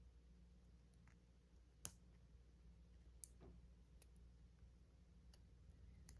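Faint, sharp small clicks of a thin steel lock pick working against the core of a wafer padlock as it pushes down the spring-loaded retaining wafer, the clearest about two seconds in and another a little after three seconds; otherwise near silence.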